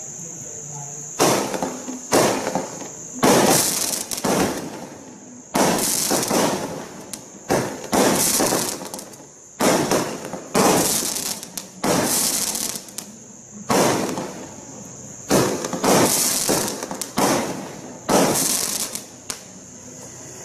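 Benwell 'Thundering Coconuts' 13-shot firework cake firing: about a dozen loud, sudden shots bursting a second or two apart, each followed by a crackling tail that fades.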